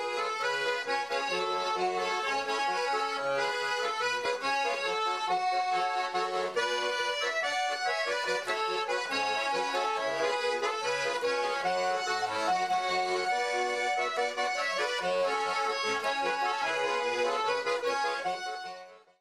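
Instrumental intro music, a lively tune that fades out near the end.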